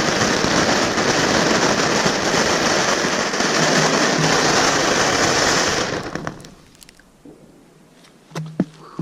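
Firework crackling rapidly and continuously, then stopping abruptly about six seconds in; a few faint pops and clicks follow.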